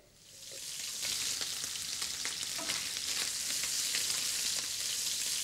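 Diced lean and fat bacon frying in olive oil in a hot pan: a steady sizzle with fine crackles that fades in over the first second.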